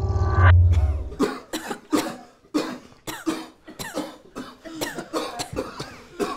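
A loud, deep rumble that cuts off about a second in, then people coughing repeatedly in short fits, as from smoke after a blast.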